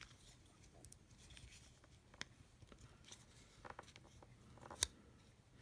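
Faint handling of a small lockback pocket knife: scattered light clicks and rubbing, with one sharper click near the end.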